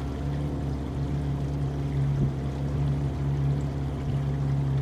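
Outboard motor of a freighter canoe running steadily at cruising speed, a low, even drone with water washing along the hull.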